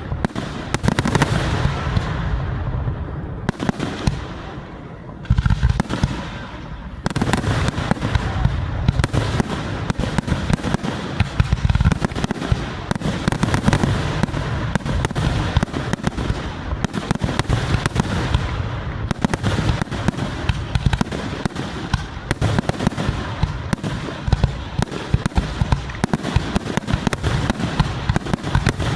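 Fireworks going off in a dense, continuous barrage of bangs and crackles, easing briefly about four seconds in, then building back up.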